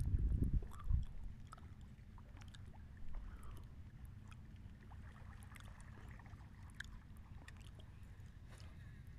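Small wooden boat on calm water: a low rumble of handling in the first second, then a faint steady low hum with scattered light clicks and ticks.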